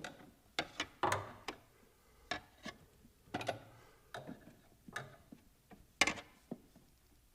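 Plastic engine-bay trim panel being pulled out of its clips and handled: about a dozen irregular sharp plastic clicks and knocks, the loudest about six seconds in.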